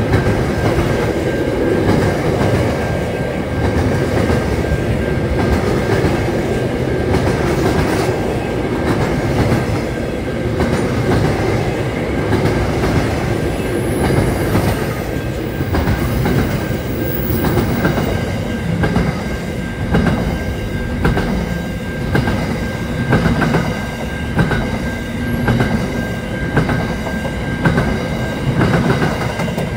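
Freight train wagons rolling past at close range, a steady heavy rumble with the rhythmic click of wheelsets over rail joints, more distinct in the second half. A thin, steady high tone runs under it.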